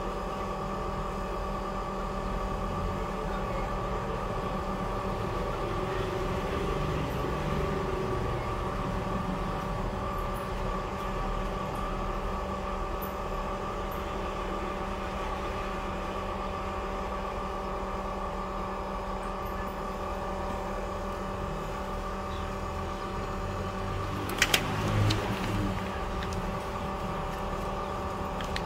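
Steady mechanical hum of several even tones, with two sharp clicks and a short knock near the end.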